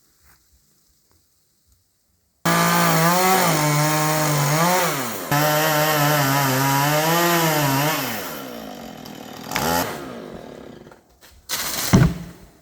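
Chainsaw running and cutting wood. It starts abruptly about two and a half seconds in, its engine pitch rising and dipping under load, then dies away. A short rev follows, then a sharp knock near the end.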